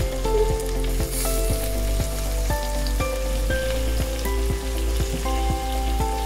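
Background music with a steady beat and a melody of held notes, over a hiss of sizzling from chicken pepper fry cooking in a clay pot.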